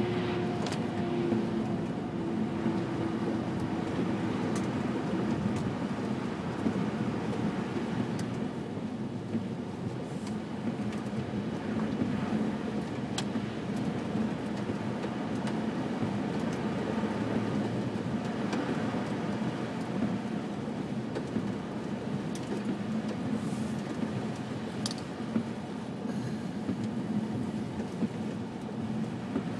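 Steady road and engine rumble heard inside a moving car's cabin, with tyres running on a snowy, slushy road. A faint whine drops slightly in pitch and fades out within the first few seconds, and a few faint clicks come through now and then.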